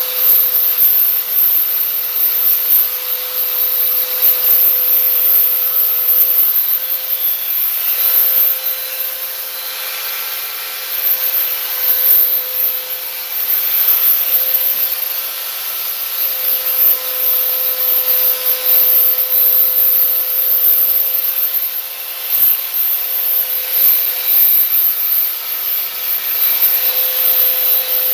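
Electric power sander running steadily and grinding against a fiberglass panel, its level rising and falling as it is pressed and moved over the surface.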